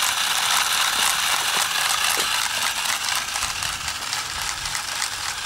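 Radio-control toy tarantula walking, its small geared motor whirring steadily with a rapid run of faint clicks from the leg mechanism.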